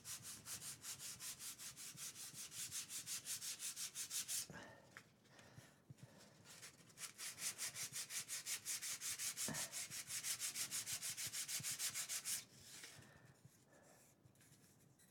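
Fine sandpaper rubbed by hand back and forth over a small laser-cut wooden kit part, in quick even strokes about three or four a second. Two spells of sanding with a pause of about two seconds between them; it stops a few seconds before the end.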